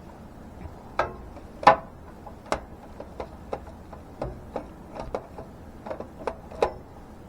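Irregular series of sharp clicks and light knocks, the loudest about a second and a half in, from hard objects being handled and repositioned by hand.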